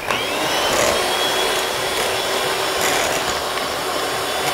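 Electric hand mixer switched on and running steadily, its beaters whisking egg whites and sugar in a stainless steel bowl. The motor's whine rises in pitch as it comes up to speed at the start. The whites are being beaten toward stiff peaks for a meringue.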